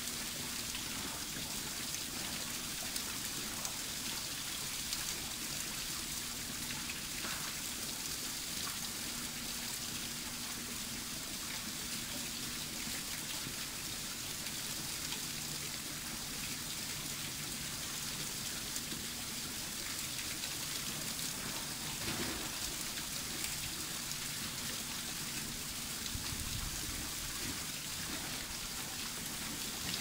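Steady hiss of water falling and splashing at an ice-covered waterfall, even throughout.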